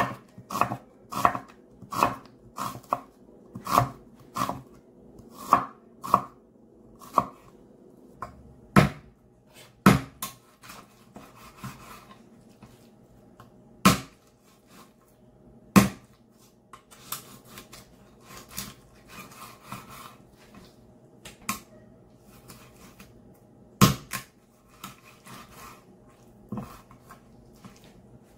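Kitchen knife chopping on a wooden cutting board. First comes an even run of quick knocks, about two a second, as an onion is diced, then fewer, heavier single knocks with light scraping between as raw chicken thighs are cut into halves.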